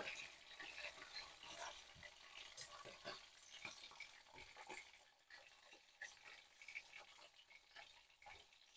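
Whitebait frying in oil in a wok, a faint crackling sizzle, with a metal slotted spatula scraping and tapping the pan as the fish are turned to keep them from sticking.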